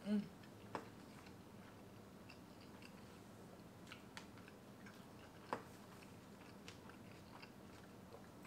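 A person chewing and biting into a corn tortilla street taco, with faint wet mouth clicks and ticks throughout. There is a short hum of the voice at the very start, a sharp click just under a second in and a louder click about five and a half seconds in.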